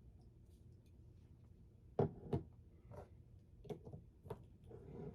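Light handling noises: two soft knocks about two seconds in, then a few lighter clicks and a short breathy sound near the end.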